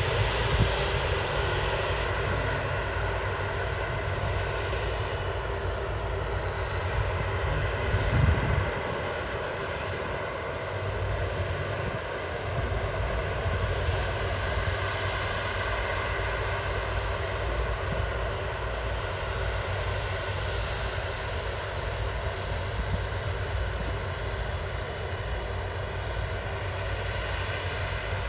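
Twin turbofan engines of an Airbus A330-200F freighter running at takeoff power: a steady jet noise with several high whining tones held through it. A brief low thump about eight seconds in.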